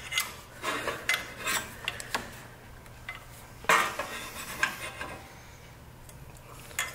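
Light metallic clicks and rattles from small ignition parts and wire terminals being handled, with a louder clank a little over halfway through.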